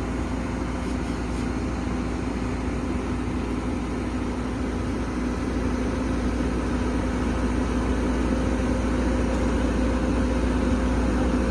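Komatsu PC205 excavator's diesel engine running steadily with a constant hum, getting a little louder in the second half.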